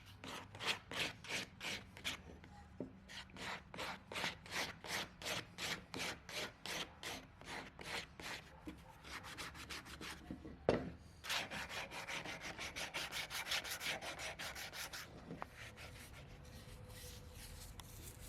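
Sandpaper rubbed back and forth on a wooden piece by hand, in even strokes about three a second. There is a single sharp knock about ten seconds in, then quicker strokes, and it goes quieter near the end.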